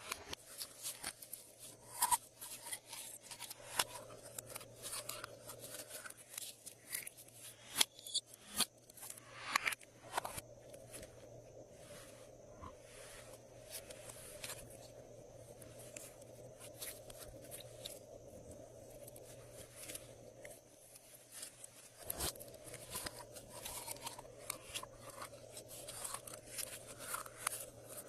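Glossy slime being worked by hand, making irregular sticky clicks and crackles. The clicks are busiest in the first ten seconds and again from about twenty-two seconds on, with a faint steady hum underneath.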